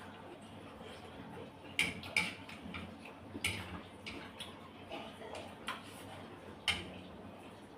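Chopsticks and a spoon clinking against ceramic bowls and a plate during a meal: about five short, sharp clicks spread over the few seconds.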